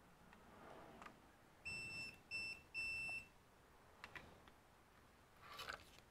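Three short electronic beeps at one high pitch in quick succession, the middle one shortest.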